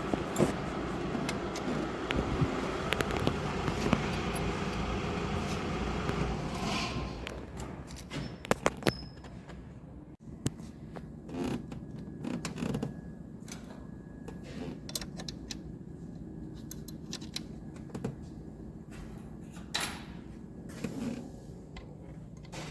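Scattered clicks, clinks and short scrapes of hand tools and metal engine parts being handled during timing-belt work. A steady background noise under the first several seconds drops away about seven seconds in.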